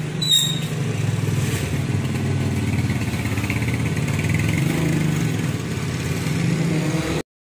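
Electric hair clippers buzzing steadily as they cut hair over a comb, with a brief click about a third of a second in; the buzz cuts off suddenly near the end.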